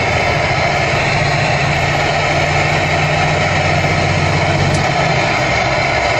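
Semi-truck's diesel engine pulling steadily at about 1500 rpm, heard from inside the cab over road noise. Near the end the engine note changes as the driver lifts off the throttle and the truck coasts.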